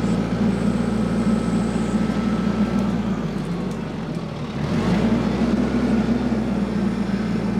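TYM compact tractor's diesel engine running steadily under work. Its engine note sags for a moment about four seconds in, then picks back up.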